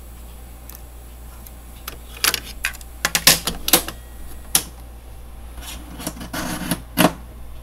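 Clacking mechanical clicks of the JVC RC-M70JW boombox's piano-key cassette buttons being pressed and released, a quick run of sharp clicks starting about two seconds in, then a softer rustle and one more click near the end.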